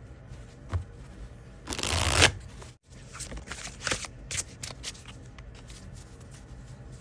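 A freshly unboxed deck of oracle cards being shuffled by hand. There is a longer rushing shuffle about two seconds in, then a run of quick short shuffling strokes.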